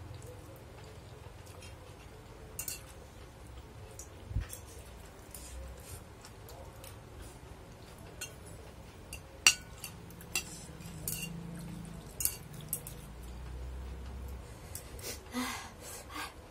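Eating off a plate: a metal spoon and chopsticks clink and scrape against the plate in scattered clicks, the sharpest about halfway through. Near the end there is a short slurp from the spoon.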